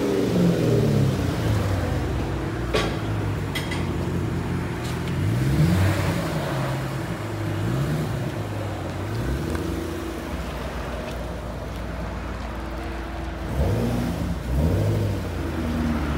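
2010 Chevrolet Camaro SS's 6.2-litre V8 idling through an X-pipe with the mid resonators and rear mufflers deleted (stock catalytic converters kept), blipped several times so the exhaust note sweeps up and falls back. A couple of sharp clicks sound about three seconds in.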